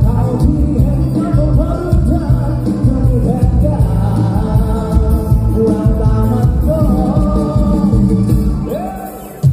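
Live band music played loud through a concert sound system, with a singer's voice over a heavy bass beat. It fades down near the end.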